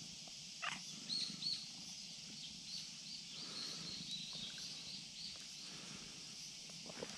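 Outdoor ambience: small birds chirping in short repeated calls over a steady high hiss, with a brief rustle about half a second in.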